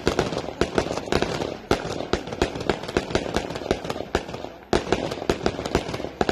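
Fireworks going off in quick, irregular succession: sharp bangs and pops, several a second, with crackling between them. There is a brief lull before a loud bang about three-quarters of the way in.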